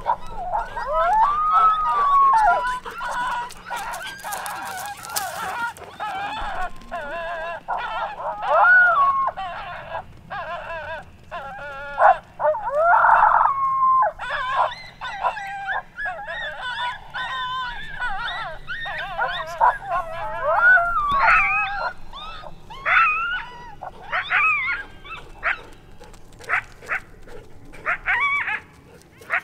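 Canine yelping and howling: an almost unbroken run of high, wavering cries, with a loud burst about thirteen seconds in. In the last several seconds it breaks up into separate short yelps.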